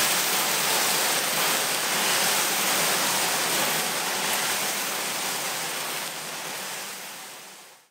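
Gravel tumbling inside a rusty steel aircraft fuel tank turned by an electric cement mixer, scouring the rust from inside the tank: a steady rushing rattle that fades out over the last two seconds.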